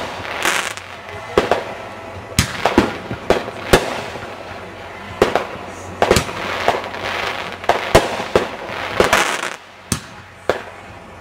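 Aerial fireworks bursting: a quick, irregular run of sharp bangs, more than a dozen, several of them followed by a hissing crackle.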